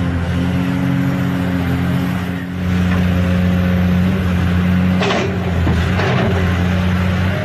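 Toy excavator's small electric motor whirring steadily, with a brief clatter about five seconds in.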